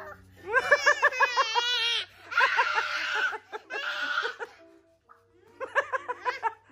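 A young boy laughing in quick bursts, then letting out two long, loud, rough shrieks, then giggling again near the end.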